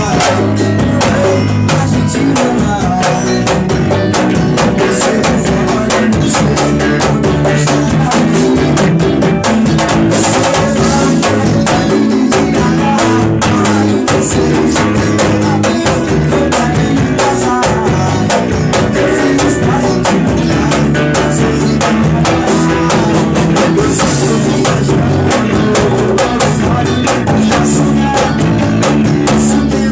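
A band's recorded song played at a steady beat, with drum kit and guitar.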